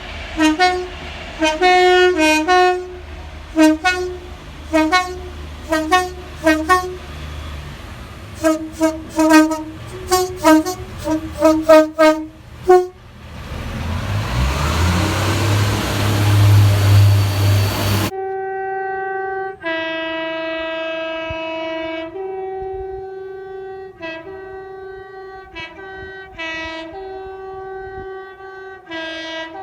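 Train horns sounding tunes. First comes a quick run of short two-tone toots, then a loud rush with a low drone rising in pitch. After a sudden cut, a second horn plays longer notes that alternate high and low.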